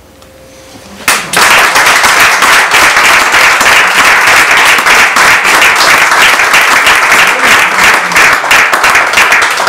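A small audience applauding: dense hand clapping breaks out suddenly about a second in and keeps going steadily.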